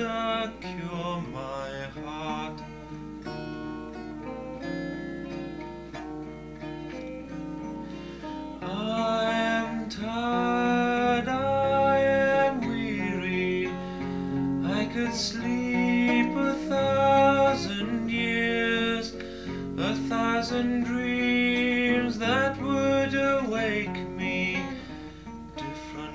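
Demo recording of a rock song: strummed acoustic guitar with a sung vocal, the music growing fuller and louder about nine seconds in.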